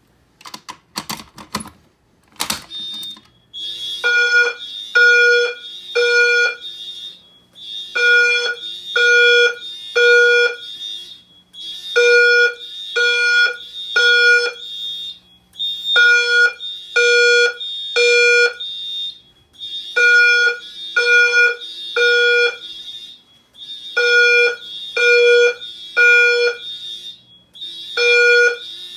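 Simplex TrueAlert fire alarm notification appliances sound the temporal-three evacuation pattern: three horn pulses about a second apart, then a pause, repeating every four seconds, over a steady high whine. A few sharp clicks come first, as the alarm is activated.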